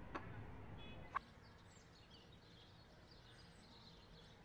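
Near silence: faint room tone with two soft clicks in the first second and faint, scattered high chirps.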